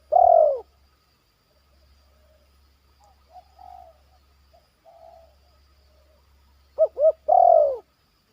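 Spotted dove cooing. A long, drawn-out falling coo comes right at the start, and about seven seconds in two short notes lead into another long coo. Softer, fainter cooing notes come in between.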